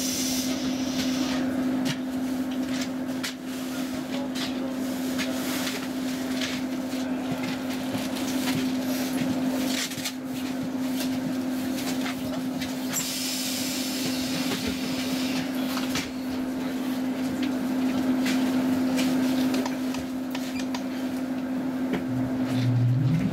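Roslagsbanan X10p electric commuter train standing at a platform, its equipment humming on one steady tone, with scattered knocks and clicks inside the carriage. Near the end a low rising whine starts as the train begins to pull away.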